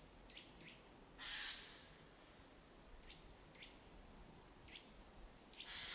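Faint short, high chirps of small birds, scattered through, with a brief soft whoosh about a second in and another at the very end.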